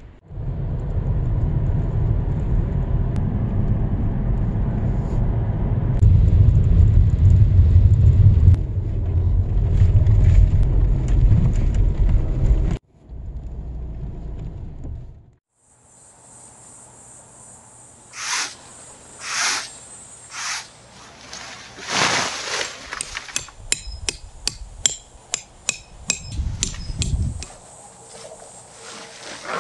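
Low, steady rumble of a Volkswagen Golf 2.0 TDI on the move, heard from inside the cabin, which cuts off about 13 seconds in. Outdoors after that comes a steady high chirring of crickets, with short rustling bursts of nylon shelter fabric being spread and handled.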